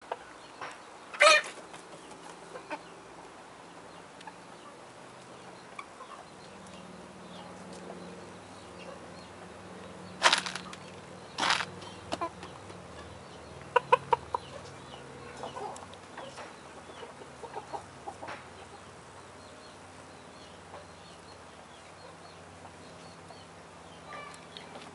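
Naked-neck silkie chickens clucking softly now and then, with a quick run of clucks about two-thirds of the way in. Three loud sharp sounds stand out, one about a second in and two close together around the middle.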